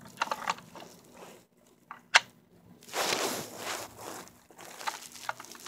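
Handling noise from a die-cast toy pickup truck and the phone being moved about on carpet: scattered small clicks and rubbing. There is one sharp click about two seconds in and a longer scraping rustle about a second later.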